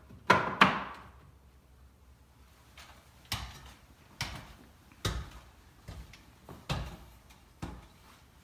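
Two quick plastic clicks as the cover is snapped back onto a doorbell chime, with a brief rattle after them. Then a run of single knocks, about one a second.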